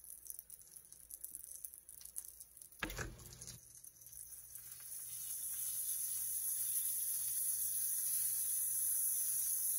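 Quesadilla frying in margarine in a griddle pan, sizzling, with a single knock about three seconds in; the sizzle grows steadily louder over the last few seconds.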